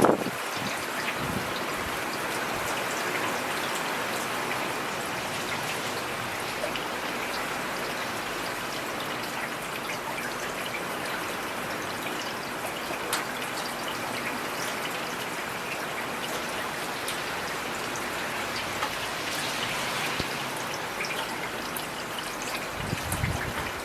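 Heavy rain falling steadily, with individual drops ticking through the hiss. A brief low rumble comes in near the end.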